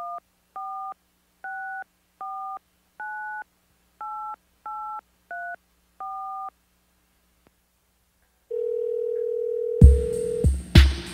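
Touch-tone telephone keypad dialing a number: nine short two-note beeps in an uneven rhythm. After a pause comes a steady low telephone tone for about two seconds, and music with a heavy beat starts near the end.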